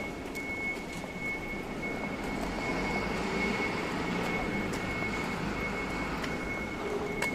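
Low rumble of a passing vehicle, slowly growing louder, with a steady high-pitched tone held throughout and a few faint clicks.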